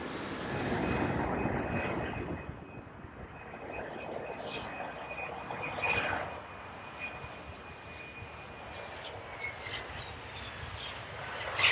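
Bombardier CRJ-900 regional jet's turbofan engines running: a broad jet noise with a steady high whine, growing quieter about two seconds in as the aircraft moves off.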